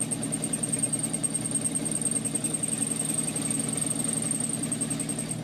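Sewing machine running steadily, topstitching a straight seam along the edge of a fabric belt; it stops at the very end.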